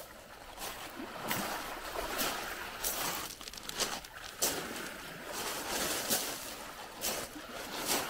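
Small sea waves washing and splashing on a beach: a steady wash of surf broken by short, sharp splashes about once a second.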